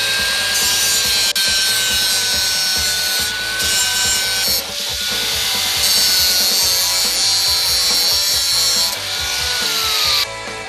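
Angle grinder cutting and cleaning up steel angle iron, its motor holding a steady whine. Near the end the whine drops in pitch and the grinding stops. Background music plays faintly underneath.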